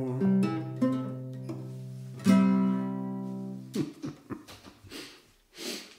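Acoustic guitar closing a folk song: chords ringing, with a last chord strummed about two seconds in that fades away. A few light knocks follow near the end.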